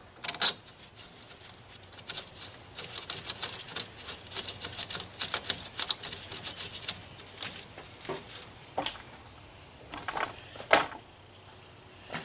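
Ratchet wrench clicking rapidly as bolts are run in, with a few sharper metal knocks in between.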